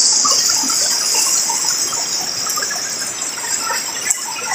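Stream water running over rocks, with a steady high-pitched hiss above it and one sharp click near the end.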